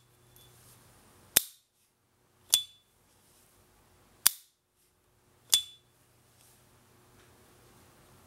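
S.T. Dupont Ligne 2 lighter's hinged lid snapped shut and flicked open, twice over, about a second apart. Each opening gives the lighter's signature 'ping', a high ringing note that hangs briefly; each closing is a sharp click that stops dead.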